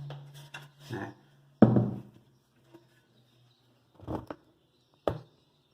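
Hurricane car-audio woofer being worked by hand, its cone pushed in and out to check for rubbing. It gives short soft thumps: one louder about one and a half seconds in, then two about a second apart near the end. No scraping is heard, a sign that the voice coil is not rubbing.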